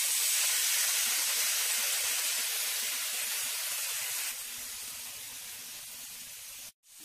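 Soaked moong dal, still wet, sizzling in hot oil in a kadai with spinach and tempering: a strong, even sizzling hiss that eases about four seconds in, with a brief break near the end.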